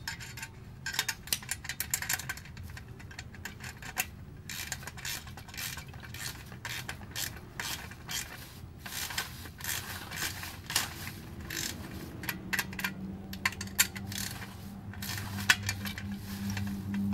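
Irregular metallic clicks and rattles of fittings being handled at the gauge and air-valve end of an Accusump oil accumulator while its air pre-charge is pumped up to 40 psi. A steady low hum starts about twelve seconds in.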